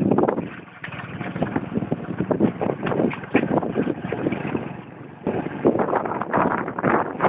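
Wind buffeting the microphone on a moving motorcycle, in uneven gusts that ease about five seconds in and then pick up again.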